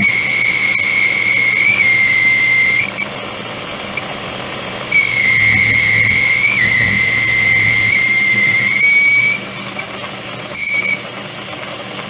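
Metal lathe boring a hole in a metal part, the cutting tool squealing at a high steady pitch over the machine's hum: two long cuts of about three and four seconds, and a short one near the end. The squeal comes from a cut the machinist reckons was probably a little too deep.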